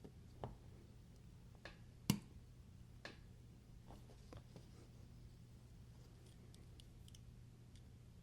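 Faint, scattered clicks and light taps of small metal knife parts and a screwdriver being handled during disassembly, with one sharper click about two seconds in, over a faint steady low hum.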